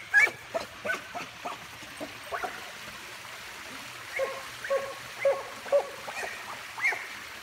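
A dog whining in short yelps: a few in the first second and a half, then a run of about seven, roughly two a second, from about four seconds in.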